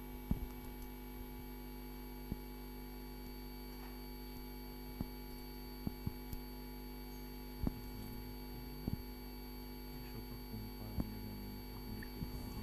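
Steady electrical mains hum made of several constant tones, broken now and then by faint short clicks.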